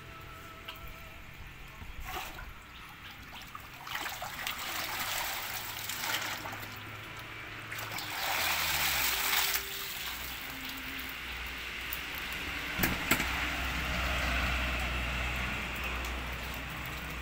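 Water splashing and pouring off a hand dip net full of catfish as it is lifted out of a tarpaulin fish tank, in several bursts, the loudest about eight seconds in, with a single knock around thirteen seconds.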